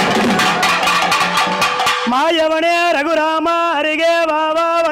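Tamil devotional folk song: drums beat quickly for about two seconds, then a voice comes in singing long, held notes over the drumming.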